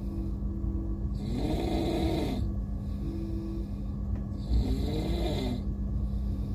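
A person snoring: two long snores about three and a half seconds apart, each a rasping breath whose pitch rises and falls.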